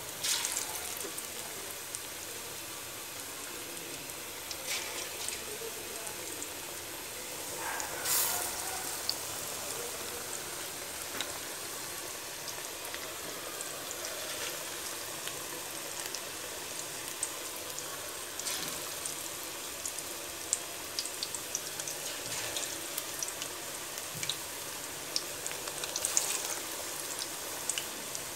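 Pakoras deep-frying in hot oil: a steady sizzle with scattered fine crackles and pops. It swells briefly a few times, most strongly about eight seconds in and near the end.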